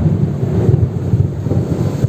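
Thunder rumbling loudly and continuously with an uneven, rolling low rumble, over the steady hiss of heavy rain.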